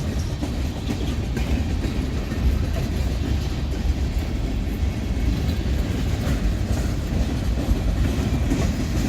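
Freight train cars rolling past close by: a steady rumble of steel wheels on the rails, without a break.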